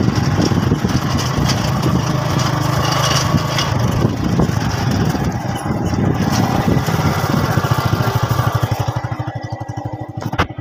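Motorcycle engine running while riding over a dirt track. Near the end it gets quieter and its separate, evenly spaced firing beats come through plainly.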